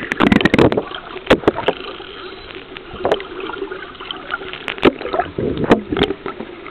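Muffled underwater sound picked up by a submerged camera: a steady water noise with scattered sharp clicks and knocks.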